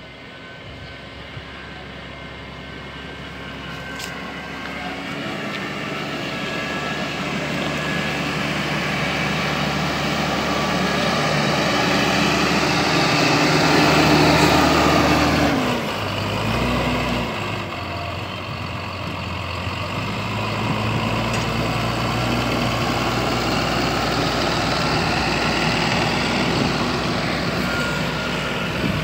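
Claas tractor's diesel engine running as it drives over a silage clamp, packing chopped grass. It grows louder as it comes close, loudest about halfway. Just after that the engine note drops and wavers briefly as it slows and changes direction, then it runs steady again.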